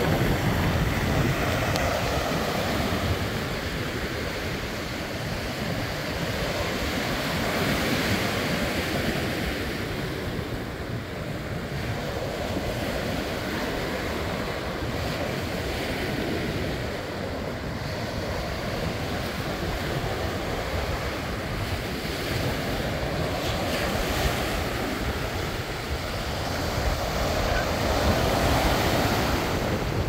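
Small ocean waves breaking and washing up a sandy beach in a continuous surf wash that swells and eases every several seconds, with wind rumbling on the microphone.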